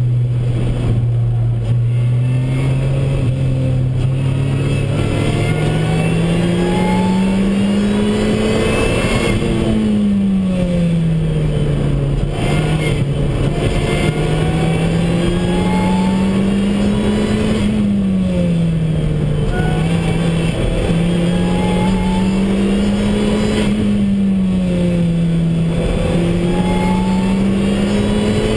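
Lotus Exige S engine at racing speed, heard from inside the cabin, its note climbing gradually in pitch and then dropping back quickly, three times over.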